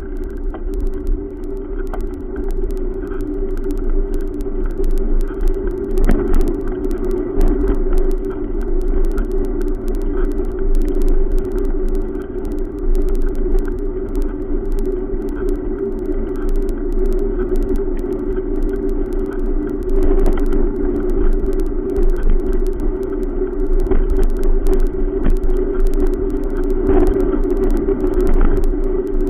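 Riding noise from a bicycle rolling along a concrete sidewalk: a steady rumble with frequent small clicks and rattles as it passes over the slab joints.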